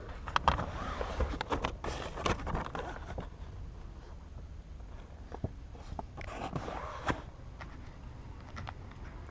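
Handling noise inside a car: scattered clicks, light knocks and rustling over a low steady rumble, busiest in the first three seconds and again around six to seven seconds in.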